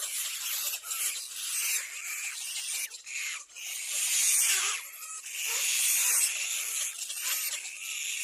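Little black cormorant chicks giving hoarse, hissing squeals in uneven bursts, loudest about halfway through.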